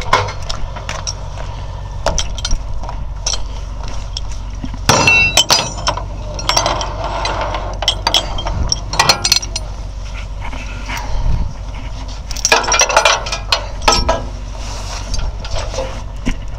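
Steel tow chain and hook clinking and rattling against a steel flatbed deck as they are handled, in several bursts of clatter, over a low steady rumble.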